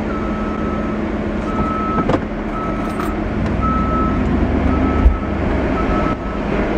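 Forklift backup alarm beeping repeatedly at one steady pitch over a running engine's rumble. A metal knock comes about two seconds in, and a heavier thump about five seconds in.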